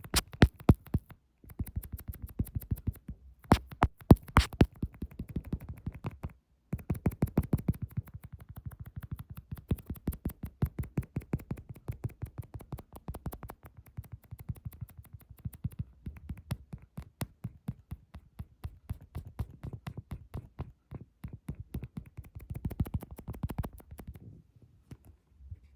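ASMR fingertip tapping close to the microphone: fast, even taps, several a second, with a few short pauses.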